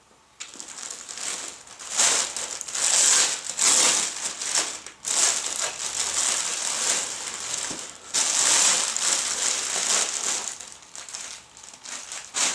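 Crumpling and rustling of printed lawn cotton fabric being handled and smoothed out, starting about half a second in and coming in uneven bursts.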